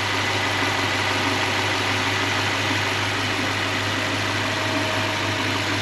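Toyota 3UZ-FE V8 engine idling steadily with its accessory belt running on a freshly rebearinged top idler pulley and tensioner. Most of the earlier bearing whine is gone.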